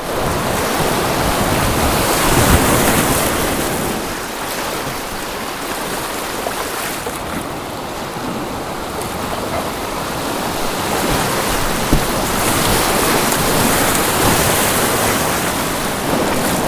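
Whitewater rushing and splashing around a kayak as it runs a river rapid, heard close up from a camera on the bow, with a low rumble of wind buffeting the microphone.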